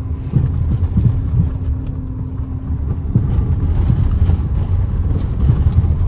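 Car driving along a road, heard from inside the cabin: a steady low engine and road rumble with irregular jolts, and a faint steady hum that stops about three seconds in.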